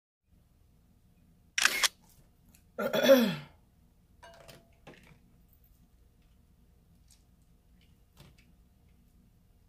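King crab leg shell snapped open with a sharp crack. About a second later comes a louder, brief sound that slides down in pitch, then a few faint clicks of the shell being handled.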